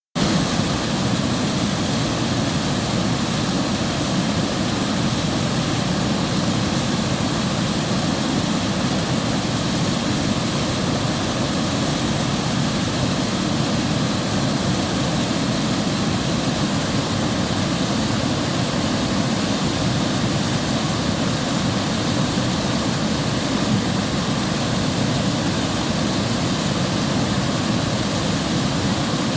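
River water rushing, a steady full rush with no change in level.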